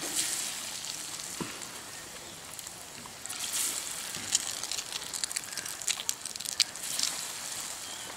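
Breadcrumb-coated egg rolls deep-frying in hot oil in an aluminium wok: a steady sizzle with sharp crackles and pops, busiest from about three to seven seconds in.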